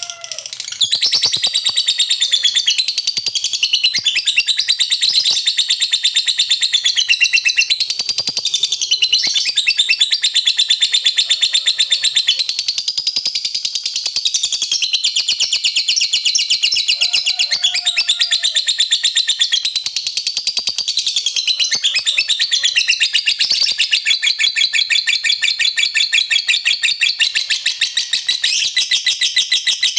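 Lovebird singing a long 'ngekek': a very rapid, shrill chattering trill that picks up about a second in and then runs on without a break.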